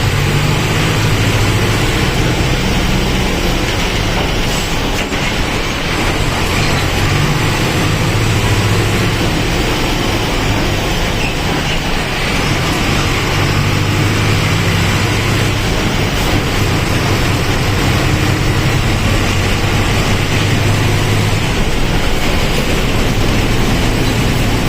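Mercedes-Benz OF-1722M bus's diesel engine running while the bus drives, a loud low drone that swells, fades and shifts slightly in pitch as the engine speed changes, over steady road and rattle noise.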